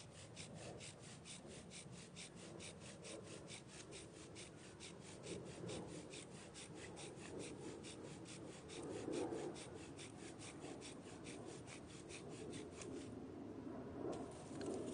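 Bow drill at work: the wooden spindle grinding and rubbing in the fireboard under the back-and-forth strokes of the bow, swelling louder in places. Over it runs a high, even pulsing about four times a second that stops about two seconds before the end.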